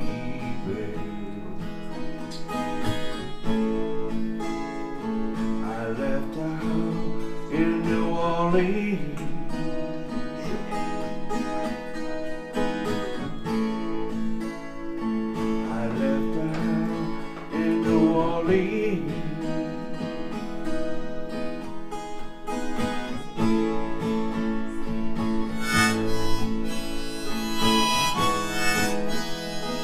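Acoustic guitar strumming with a harmonica playing held melody notes over it, an instrumental break between verses of a slow country-blues song.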